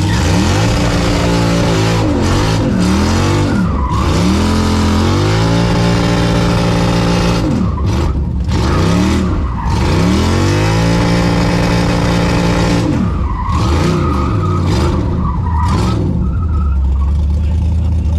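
A Texas Speed 416ci LS3 V8 revving hard in repeated pulls, its pitch climbing and holding high about three times before dropping back, while the rear tyres spin and squeal in a burnout.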